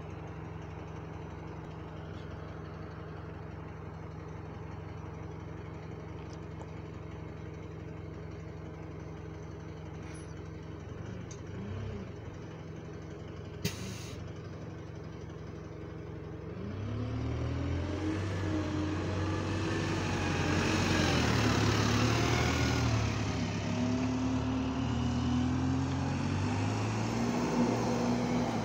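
Alexander Dennis Enviro200 (E20D) single-deck bus idling with a steady low hum, then pulling away about 17 seconds in. Its engine note climbs and falls with a moany whine as it accelerates off, getting louder. A single sharp click is heard about 14 seconds in.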